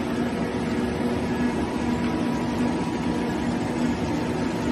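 Rotary friction welding machine running: a steady mechanical hum with a constant low tone and a fainter higher one, unchanged throughout.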